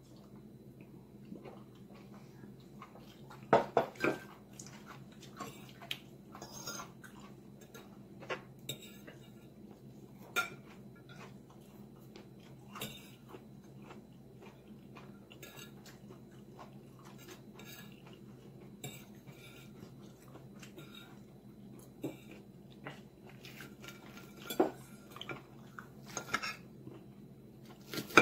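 Metal fork clinking and scraping against a ceramic plate while eating, in scattered sharp clinks, busiest about four seconds in and again near the end. A steady low hum runs underneath.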